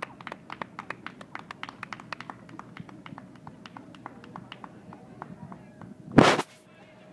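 Quick light tapping, several taps a second, thinning out after about five seconds. A brief loud rustling bump about six seconds in.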